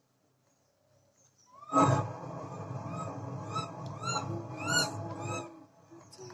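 Macaque giving a series of about seven high-pitched, rising-and-falling calls, about two a second, starting with a loud onset about two seconds in and stopping a little before the end.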